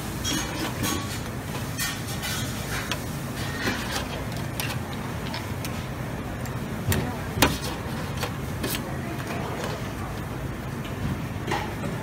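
Busy buffet dining-room hubbub: a steady background murmur with scattered clinks and knocks of utensils and dishes, the sharpest about seven seconds in.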